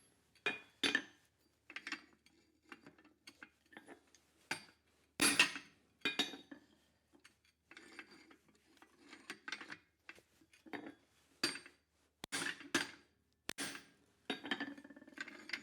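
Hand hammer blows on hot steel over an anvil, irregularly spaced and ringing, with a few heavy strikes among lighter ones and a quick run of rapid taps near the end. This is the bar being narrowed (isolated) behind the bottle-opener end.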